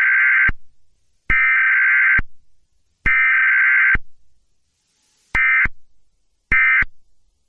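Emergency Alert System digital data bursts: harsh, buzzing two-tone bursts, three of about a second each followed by three short ones. The three short bursts are the end-of-message code that closes the alert.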